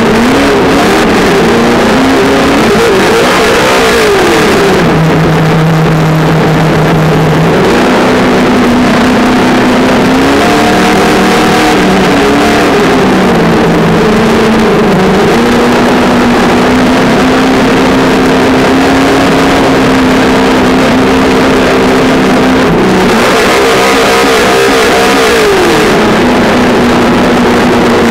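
Traxxas Slash 2WD XL5 RC truck driving, heard close up from a camera mounted on the truck. The whine of its brushed electric motor and gears steps and glides up and down in pitch as the throttle changes, over a steady rush of plastic tyres rolling on concrete.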